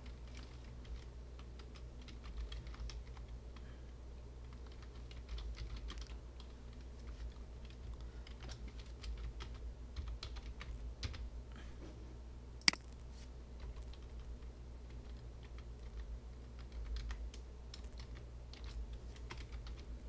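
Computer keyboard typing: an irregular run of soft key clicks as an email address and password are entered, with one sharp, louder click about twelve and a half seconds in, over a faint steady low hum.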